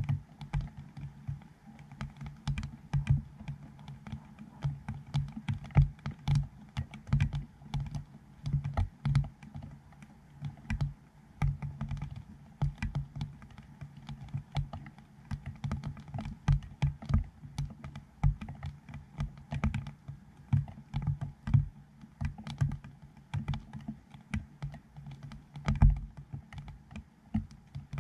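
Light rain heard as raindrops striking a GoPro Hero7 camera left out in it: irregular taps, several a second, each with a dull low thud.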